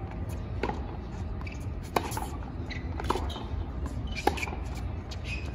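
Tennis ball struck back and forth in a baseline rally on a hard court: four sharp pops about a second apart, over a steady low background rumble.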